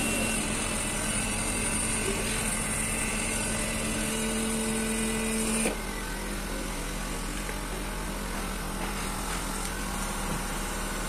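Electric hydraulic pump motor of a two-post car lift running steadily while raising the car, then cutting off suddenly about six seconds in. A quieter steady hum continues after it stops.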